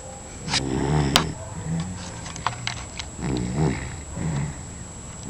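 Dog snoring in its sleep: a few low, rasping snores, the strongest about a second in, with a few sharp clicks among them.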